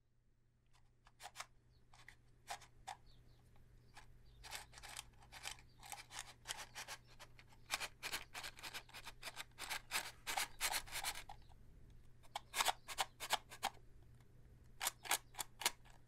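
A cardboard box of Redheads extra-long wooden safety matches being handled, giving clusters of sharp clicks and rattles over a faint steady hum.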